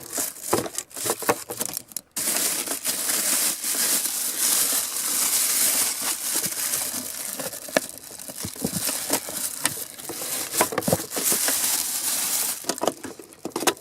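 Packaging crinkling and rustling, with scattered clicks and knocks, as a battery charger and its clamps are unpacked from the box.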